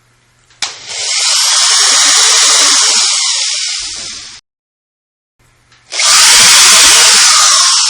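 Power drill running in two long bursts, each about three to four seconds, boring pilot holes. Each burst starts with a click and rises, then cuts off suddenly.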